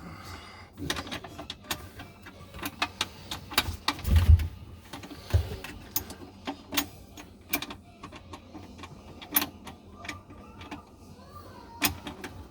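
Irregular clicks and taps of metal parts being handled while a garbage disposal's mounting screws are worked into place, with a heavier thump about four seconds in and a smaller one a second later.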